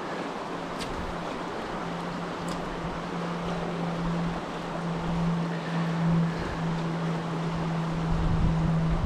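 Shallow river rushing steadily over a stony riffle, with wind buffeting the microphone. A steady low hum sits underneath and grows stronger about two seconds in.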